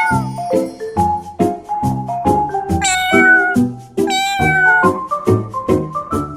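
A domestic cat meowing: two drawn-out meows about three and four seconds in, over background music with a steady beat.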